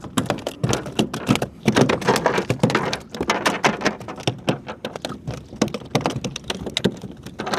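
A freshly caught trout thrashing against the kayak: a rapid, irregular patter of knocks and slaps that goes on throughout.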